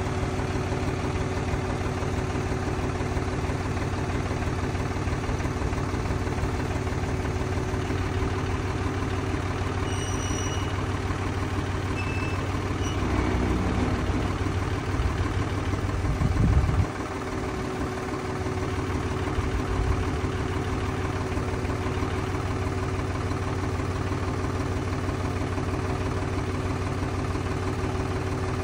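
John Deere tractor's three-cylinder diesel engine running steadily at idle while the front-end loader is raised and lowered. Near the middle the engine note grows louder for a few seconds as the loader hydraulics work, then drops back suddenly to a steady idle.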